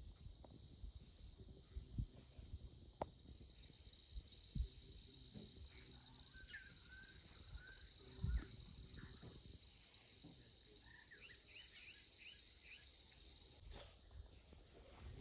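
Faint outdoor ambience: a steady, high insect chorus, with a bird chirping a few times about six seconds in and a quick run of chirps later on. A few soft low thumps come through now and then.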